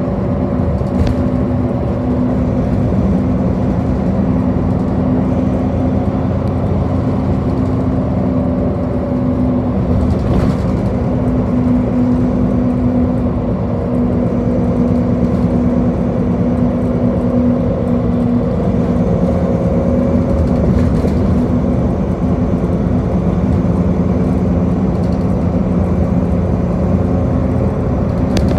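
Bus running along the road: a steady engine drone over tyre and road noise, the engine note drifting slightly up and down.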